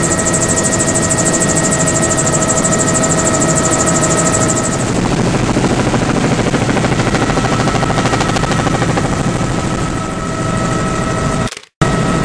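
Helicopter in flight: a fast, regular rotor beat with a steady turbine whine. A brief cut-out near the end.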